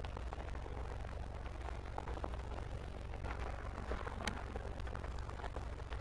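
Steady low rumble of wind and handling noise on a handheld camera's microphone while walking, with small rustles and clicks and one sharper click about four seconds in.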